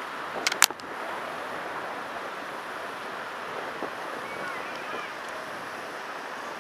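Steady wash of surf from the sea mixed with wind buffeting the microphone, with a couple of sharp clicks about half a second in.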